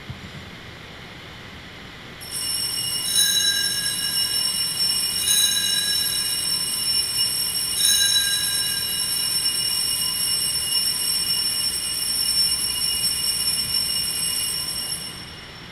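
Altar bells rung at the elevation of the consecrated host: a bright, high, many-toned ringing that starts about two seconds in, with three stronger rings a couple of seconds apart, then keeps sounding until it fades near the end.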